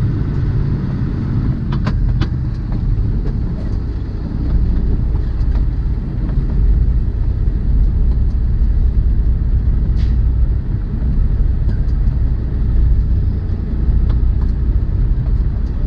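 Steady low rumble of a semi-truck's engine and road noise heard inside the cab while driving, with a few sharp clicks about two seconds in and again near the middle.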